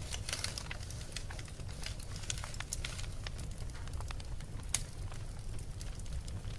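Wood fire crackling in a fireplace: irregular sharp pops and snaps over a steady low rumble, with one louder pop near the end.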